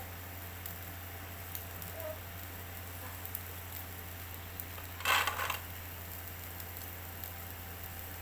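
Beef satay grilling over charcoal: faint crackling and scattered ticks, with a brief louder hiss about five seconds in, over a steady low hum.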